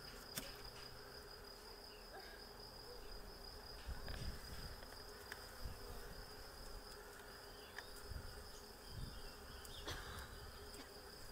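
Honeybee swarm buzzing as a faint, steady hum, with a few short clicks and low knocks as the branch holding the cluster is handled.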